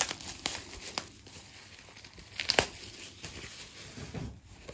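Paper and packaging rustling and crinkling as a 2023 paper calendar is handled and unwrapped, with a few sharp ticks, the loudest about two and a half seconds in.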